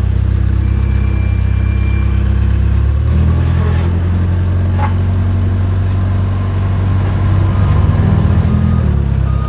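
An engine running at a steady idle, its note shifting slightly about three seconds in and again near the end.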